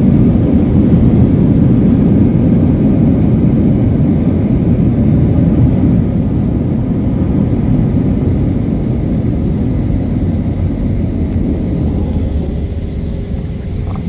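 Cabin noise of a Boeing 737 decelerating on the runway after touchdown: a loud, steady low rumble from the engines and landing gear that slowly dies away as the plane slows, dropping a step about six seconds in.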